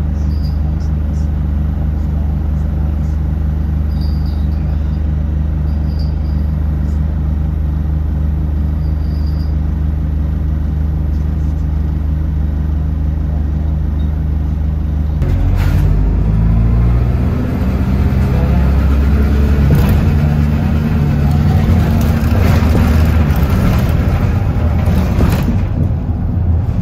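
Bus engine idling steadily, then, about halfway through, the bus pulls away and accelerates, its engine note rising and stepping as it changes gear.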